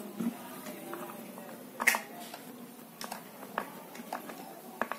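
Scattered clicks and taps of hand and screwdriver work on the plastic and metal parts inside an opened Birla mixer grinder's base, as its wire connections are fitted and tightened. The loudest knock comes about two seconds in.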